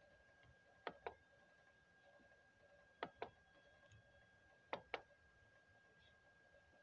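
Three short double clicks about two seconds apart in near-silent room tone, with a faint steady high whine underneath.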